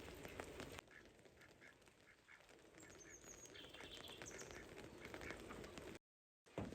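Faint bird calls: a run of short calls repeated about three times a second, over a low steady hiss. The sound drops out briefly near the end.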